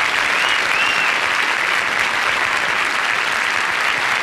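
Live audience applauding steadily once the song has finished, the band now silent. Two short high notes rising and falling sound through the clapping about half a second in.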